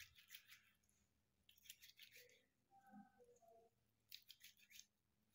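Near silence, with two short spells of faint sticky clicking from oiled hands working soft bread dough.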